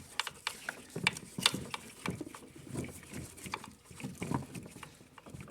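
Irregular light clicks and taps of hand-handled parts and tools under the hood, with a few soft low grunting sounds between them.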